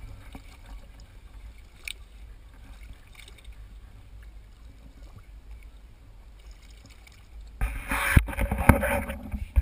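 Low steady rumble of wind and water around a small boat. About seven and a half seconds in comes a loud burst of water splashing with two sharp knocks, as a shark churns the surface beside the hull.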